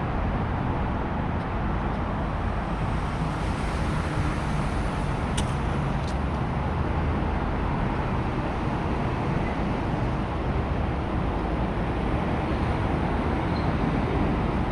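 Steady rumble of road traffic, with two faint high ticks about five and a half and six seconds in.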